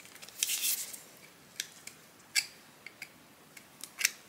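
Screwdriver tip scraping and clicking against a small steel spring and its metal part from an 1895 Singer 15-11 sewing machine, prying the spring's end out of a hole where old grease has glued it. A short scrape comes about half a second in, then several sharp metallic clicks.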